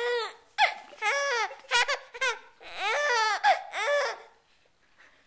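Baby vocalizing: a run of about half a dozen high-pitched squeals and coos, each rising and falling in pitch, stopping a little after four seconds in.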